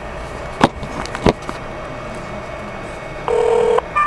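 Telephone line on a recorded call: steady line hiss with two sharp clicks about a second in, then a short steady phone tone lasting about half a second near the end.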